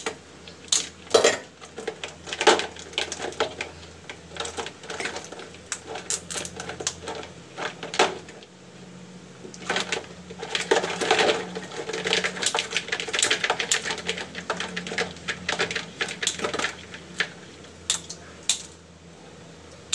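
Irregular hard clicks, taps and scraping of live mud crab shells being handled and worked with a red-handled tool over a plastic basin in a sink, the clatter thickening into a quick run past the middle.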